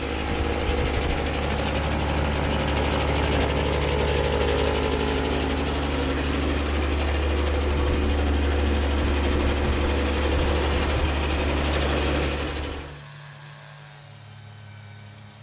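Kubota B2601 compact tractor's three-cylinder diesel running under load, driving its front-mounted PTO snowblower as it throws snow, loud and steady. About twelve seconds in, the sound drops suddenly to a much quieter, steady distant engine hum.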